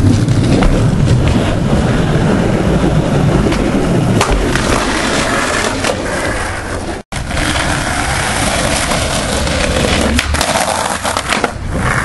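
Skateboard wheels rolling on concrete, a steady gritty rumble, with a couple of sharp clacks from the board. The sound cuts out for a moment about seven seconds in, then the rolling resumes.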